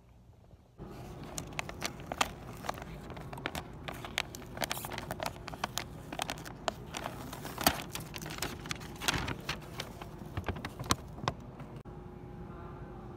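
Paper takeout bag crinkling and rustling as its sticker seal is peeled off and it is opened, a dense run of crackles and snaps that starts abruptly about a second in. Near the end it gives way to a steady low hum.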